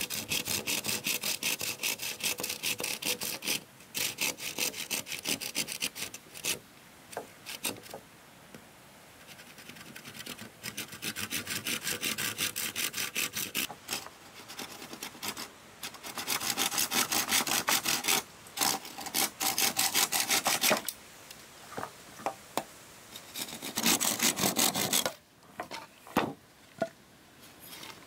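Handsaw cutting through a green bamboo pole in quick back-and-forth strokes. The sawing comes in four bouts with short pauses between, the last one brief. A few light knocks follow near the end.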